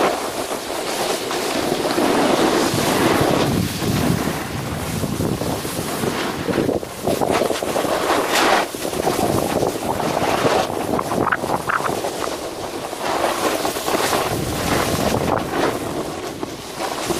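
Snowboard edge scraping and carving over packed snow, with wind buffeting the microphone; the hiss swells and eases with each turn.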